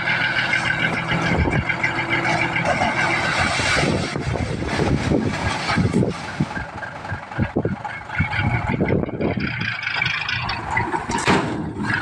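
Dump truck's diesel engine running under load while the tipper bed is raised to dump soil, with a steady whine over the engine note. Irregular knocks and rumbles come and go through the middle.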